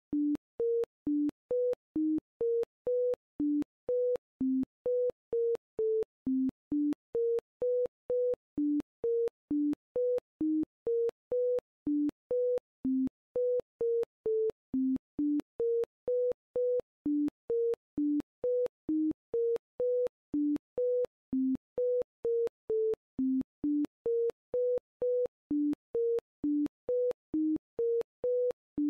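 A steady run of short synthesized beep tones, about two a second, each on either a higher or a lower pitch in an irregular pattern, with a click at the start of each beep. This is the video's custom sound tone standing in for narration.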